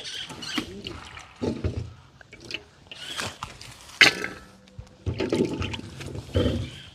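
Water splashing and sloshing in a container as coconut pieces are washed, with a sharp splash about four seconds in. Music plays in the background.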